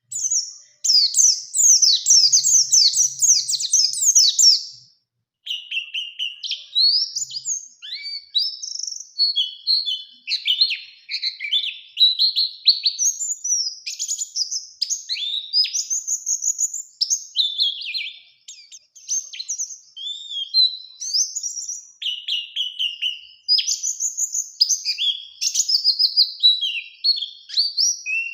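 White-eye (pleci) singing a long, rapid run of high twittering notes. It breaks off briefly about five seconds in, then carries on in near-continuous varied song phrases.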